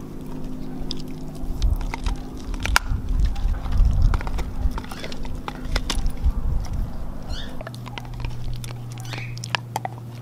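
Siberian husky gnawing on a deer antler: irregular clicks and scrapes of its teeth grinding on the hard antler.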